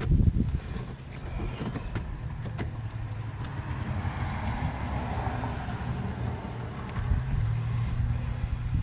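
A vehicle passing by: a low rumble with a tyre-like hiss that swells and fades in the middle. A few light clicks sound over it.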